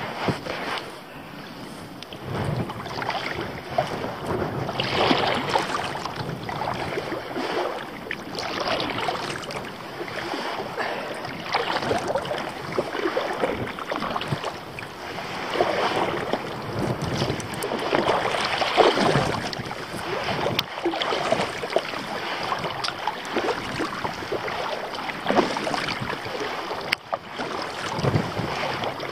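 Kayak paddle strokes dipping and splashing in choppy water, an irregular swish every second or two, with wind blowing on the microphone.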